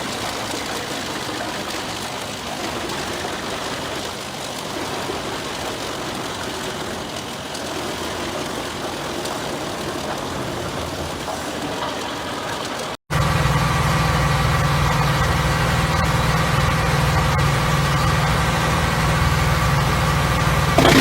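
Wood chipper running and chipping trunks, an even mechanical noise. About two-thirds through it cuts abruptly to a louder, steady engine drone of a heavy machine running.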